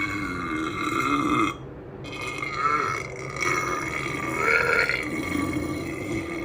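A woman's long, drawn-out burps. One breaks off about a second and a half in, then another starts and goes on for several seconds, wavering in pitch.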